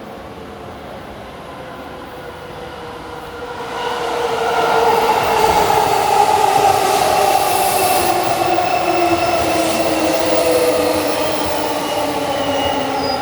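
A Tokyo Metro 05 series electric train arriving: the rumble grows about four seconds in, then the motors' whine falls steadily in pitch as the train slows.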